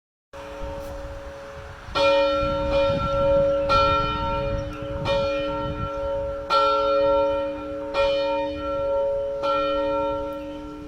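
A single church bell ringing, struck six times about a second and a half apart, its hum carrying on between strokes.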